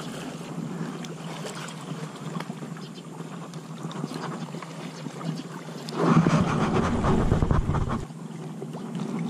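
Wind on the microphone over lapping lake water, with a louder low rumble for about two seconds some six seconds in.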